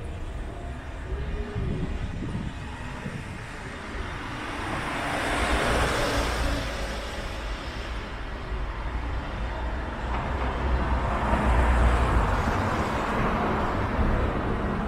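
Road traffic: two vehicles pass by, their engine and tyre noise swelling and fading, the first peaking about six seconds in and the second, louder one around twelve seconds in.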